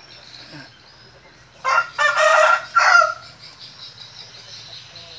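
A rooster crows once, about a second and a half long, in three parts: a short opening note, a long middle note and a short falling end.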